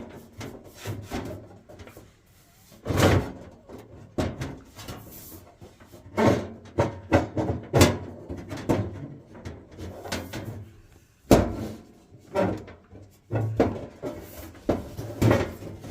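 Irregular clunks, knocks and scrapes of boiler parts being handled and fitted back into place, with sharper knocks about three seconds and eleven seconds in.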